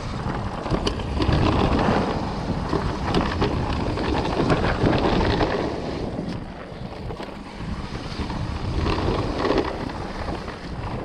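Wind buffeting the microphone during a fast e-mountain-bike descent, rising and falling with speed, with scattered sharp knocks and rattles from the bike over bumps.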